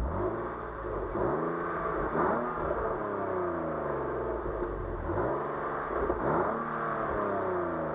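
BMW 323Ci's 2.5-litre straight-six on its stock exhaust, revved up and let fall back several times, the pitch climbing and dropping with two big rises about four seconds apart.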